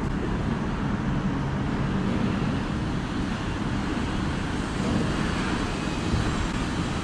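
Suspended monorail train running along its overhead beam as it pulls in and passes close by: a steady low rumble with a hum under it.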